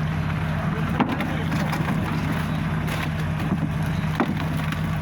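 A fishing boat's engine running steadily with a low, even hum, and two sharp knocks, one about a second in and one near the end.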